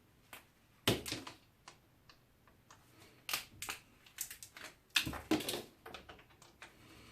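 Irregular clicks, taps and knocks of hand tools against the plastic and metal parts of an electric strimmer being taken apart, with louder clusters about a second in and around five seconds in.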